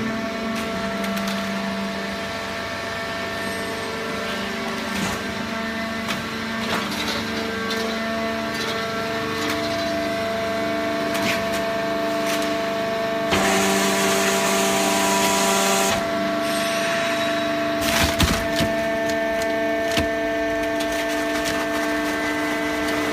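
Hydraulic cardboard baling press running: a steady hum from its pump and motor, shifting in pitch a few times, over cracking and knocking as cardboard is crushed. A louder hissing stretch comes a little past the middle, followed by a cluster of sharp cracks.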